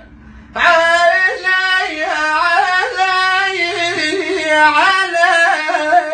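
A man singing an Iraqi Arabic lament: after a short pause, he holds one long, wavering, ornamented phrase with no clear words.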